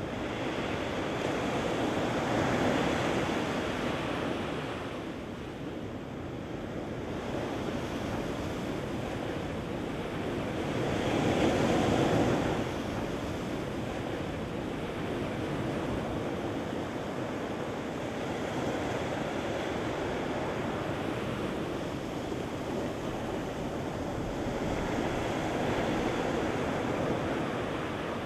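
Surf washing up a sand beach and over low rocks: a steady rush of breaking water that swells and eases with each wave, the loudest wash about twelve seconds in.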